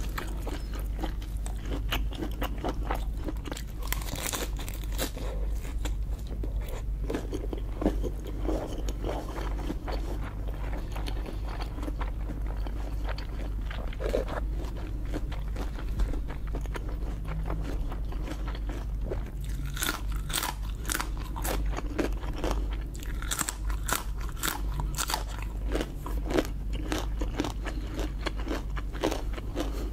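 Close-miked eating of lobster: biting, chewing and crunching, with many small sharp clicks that come thicker in the later part, over a steady low hum.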